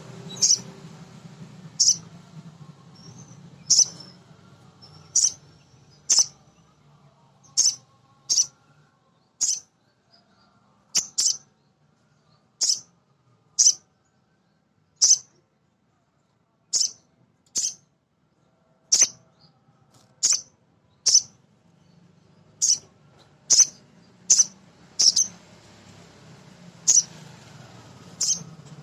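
Male little spiderhunter (sogon) calling over and over: short, sharp, high chirps about once a second, at uneven intervals, over a faint low hum.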